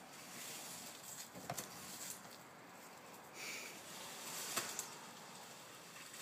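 Faint rustling and crunching of dry fallen leaves underfoot, with a few sharp crackles, the two strongest about a second and a half in and past the middle.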